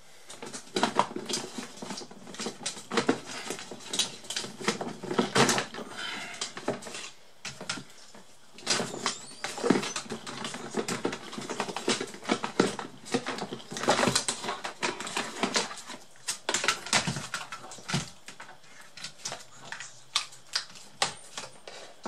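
Irregular clicks, taps and rustles from hands handling cables and a laptop power adapter on a workbench.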